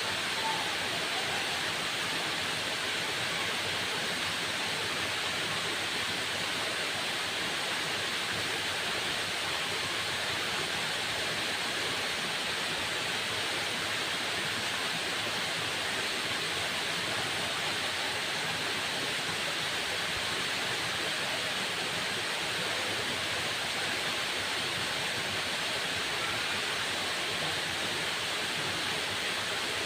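Waterfall: falling water making a steady, even rush with no breaks.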